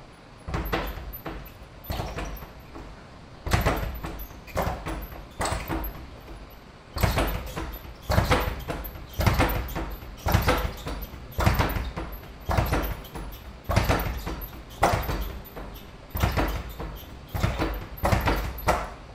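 Leather speed bag struck with single punches, about one a second, each hit followed by a quick rattle of rebounds against the wooden platform. Uneven and softer for the first few seconds, then settling into a steady beat.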